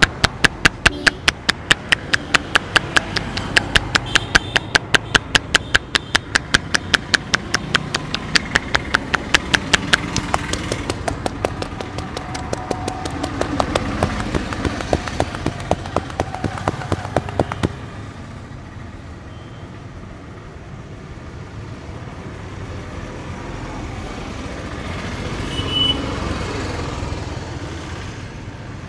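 Rapid, rhythmic hand strikes on the head during an Indian head massage, about four sharp claps a second, which stop a little over halfway through. Steady street traffic noise runs underneath and is left alone once the strikes stop.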